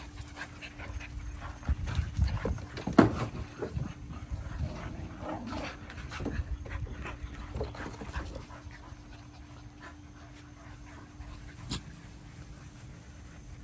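Miniature Australian Shepherd puppies playing, panting, with a few short yelps and scuffles that are loudest about two to three seconds in, over a low rumble.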